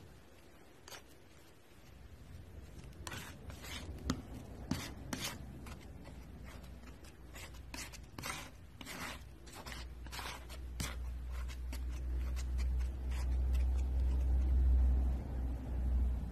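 Palette knife scraping and spreading thick paint across a flat surface, in a run of short scraping strokes that come thick and fast in the middle. A low rumble builds underneath from about ten seconds in.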